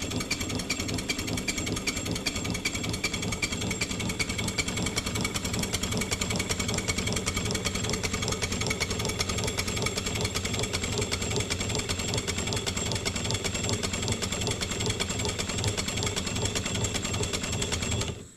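Live steam Denver & Rio Grande narrow-gauge 2-8-2 locomotive running fast on compressed air, giving a rapid, evenly spaced run of exhaust beats; the even beat shows its piston valves are set square. The air shuts off suddenly near the end.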